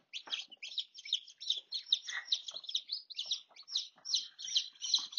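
Newly hatched chicken chicks peeping: a quick, unbroken run of short, high chirps, about five a second.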